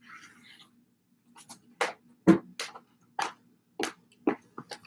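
High-heeled stiletto pumps clicking on a ceramic tile floor as the wearer walks, a run of sharp clicks about two a second starting about a second and a half in. Before that, a brief soft rubbing of a rag wiping the tiles.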